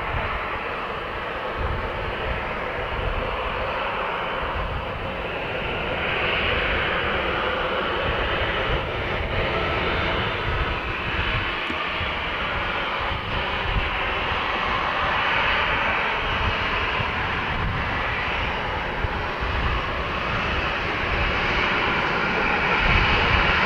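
Boeing 737 airliner's twin jet engines running at taxi power, a steady rushing hum that grows a little louder near the end as the aircraft turns toward the listener.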